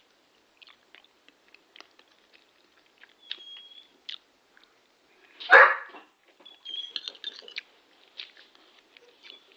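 Working springer spaniel gives one loud, short bark a little past halfway, alert-barking at a pigeon outside the window. Around it come scattered light clicks and rattles, and a couple of thin high whines.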